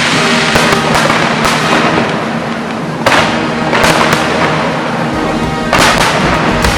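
Aerial fireworks bursting and crackling in a dense, continuous barrage, with heavier bursts about three seconds in and again near the end, over music playing underneath.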